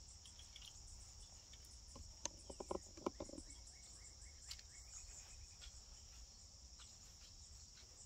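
Faint steady chorus of insects, an unbroken high-pitched chirring, with a few soft clicks about two to three seconds in.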